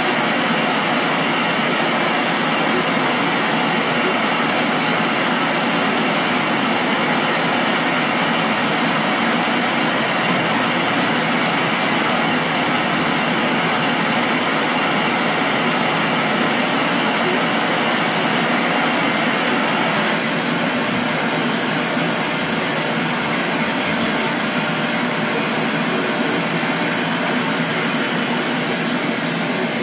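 Untuned CRT televisions' static: a steady, loud hiss. About two-thirds of the way through, its highest part drops away.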